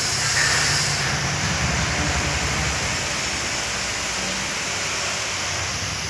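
Steady hissing noise with a low rumble underneath; the hiss thins a little about a second in.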